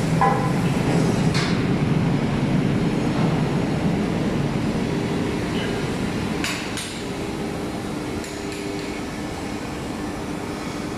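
Steady foundry machinery noise with a faint steady hum, stepping down a little about seven seconds in, broken by a few sharp metallic clinks near the start, about a second and a half in, and around six and a half seconds in.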